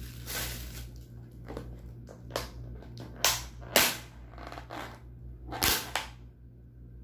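Thin plastic bags crinkling and rustling as they are pulled off a plastic food container and its lid is worked off, with several sharp crackles and snaps, the loudest about halfway through. A steady low hum runs underneath.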